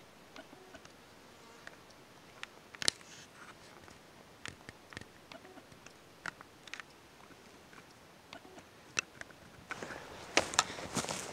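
Quiet forest background with scattered faint single clicks and ticks. Near the end, louder rustling and crunching footsteps on the forest floor set in.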